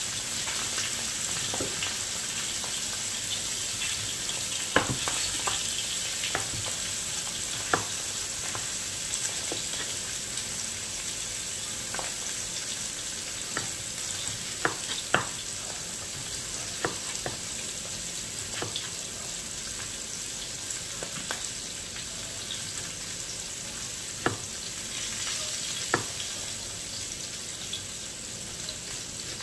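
Chef's knife slicing a red onion on a wooden cutting board: about a dozen sharp knocks at irregular intervals, one to three seconds apart. Under them runs a steady sizzle of food frying in a pan.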